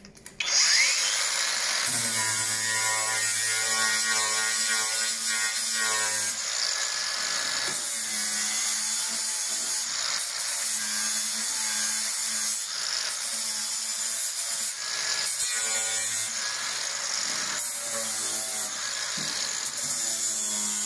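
Cordless angle grinder starting up about half a second in and grinding paint off the steel sill of a Ford Transit van down to bare metal, ready for welding. Its pitch and grit shift every few seconds as the disc is pressed on and eased off.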